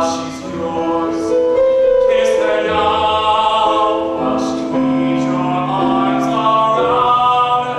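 A man singing a slow showtune ballad with piano accompaniment, holding long notes that change every second or two.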